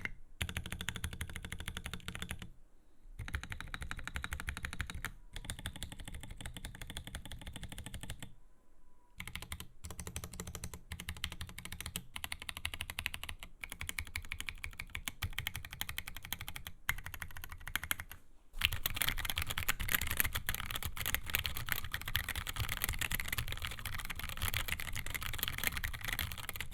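Custom 75% mechanical keyboard with Durock Koala 62g tactile switches and SA MaxKey keycaps being typed on in quick runs of keystrokes, with two brief pauses. About two-thirds of the way in the typing turns louder and denser.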